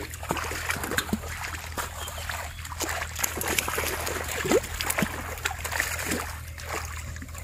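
Splashing and trickling of shallow muddy water as hands and feet move through a flooded rice paddy and fish are handled, with many short irregular splashes.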